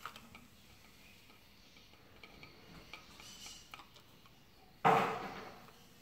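Light clicks and rattles of a plastic wall switch plate and its wires being handled, with one louder thump just before the end that fades over about a second.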